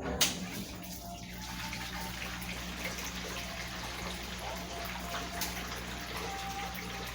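Consul CWS 12 washing machine with water rushing in steadily over a low hum. A single sharp click sounds just after the start.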